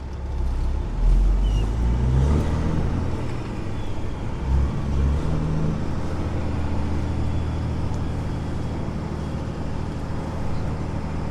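Semi truck's diesel engine pulling away, its pitch rising twice in the first few seconds with a drop between, as it climbs through the gears, then running steadily at cruise.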